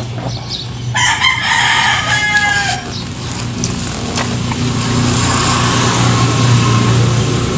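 A rooster crowing once, starting about a second in and falling in pitch at the end, over a steady low hum.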